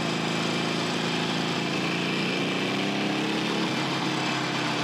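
Harley-Davidson Iron 883 Sportster's air-cooled V-twin running steadily as the bike is ridden along a street, its pitch shifting slightly about two seconds in. Wind rushes over the microphone throughout.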